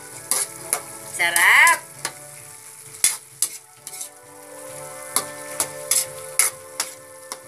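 A spatula stirring sautéed bitter gourd and pork in a metal wok, clinking and scraping against the pan about a dozen times at an uneven pace, over a steady sizzle of the simmering food.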